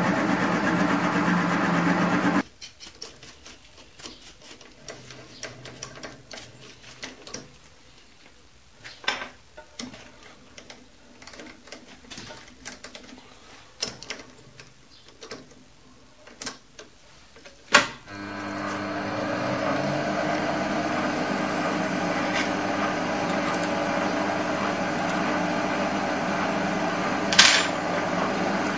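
Optimum D180x300 Vario mini lathe running, then cut off abruptly about two seconds in. Scattered light clicks and knocks follow. At about 18 seconds the lathe starts again after a loud click and runs steadily, with one more sharp click near the end.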